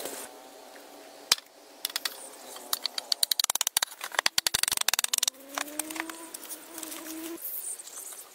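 Wooden logs knocking against one another as they are handled and stacked, with one sharp knock followed by a fast run of sharp knocks. After that comes a drawn-out rising tone.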